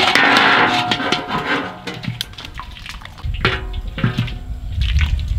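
Water splashing and sloshing in a metal basin as geckos are rinsed with a ladle, for the first couple of seconds, over background guitar music that carries on alone after that.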